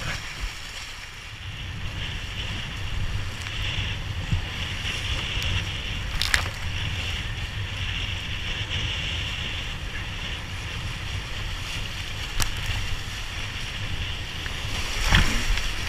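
Whitewater rapids rushing and splashing around a kayak being paddled through them, with a low rumble on the microphone. A few sharp clicks stand out above the steady rush, about six, twelve and fifteen seconds in.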